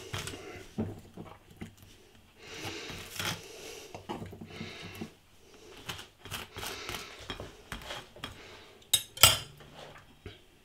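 Table knife spreading thick crunchy peanut butter on toast: several scraping strokes with small clinks of metal. Two sharp knife clinks about nine seconds in are the loudest sounds.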